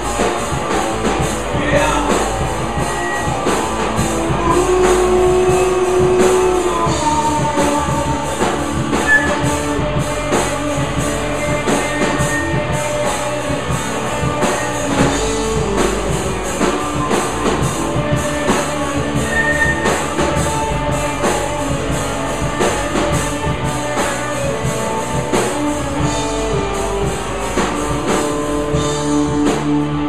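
Live rock band playing an original song: drum kit and electric guitars at full volume, with a steady beat.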